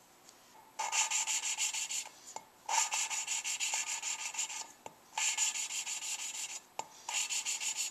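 A valve being hand-lapped into its seat in a Suzuki G16A 16-valve cylinder head: a suction-cup lapping stick is spun quickly back and forth between the palms with grinding compound, giving four spells of gritty rasping, each one to two seconds long with short pauses between. Only a slight heavier grind is left as each spell starts, the sign that the valve and seat are nearly lapped in.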